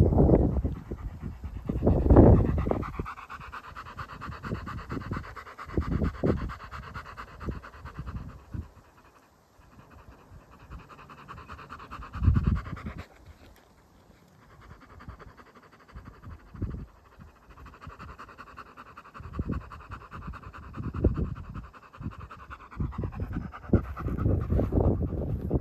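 German Shepherd panting rapidly with its tongue out, breaking off for a few seconds in the middle before starting again. A few louder low rumbles come and go, the strongest about two seconds in.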